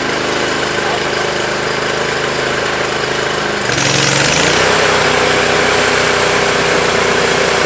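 Portable band sawmill's engine running steadily. About four seconds in, its speed jumps up and the sound becomes louder and hissier.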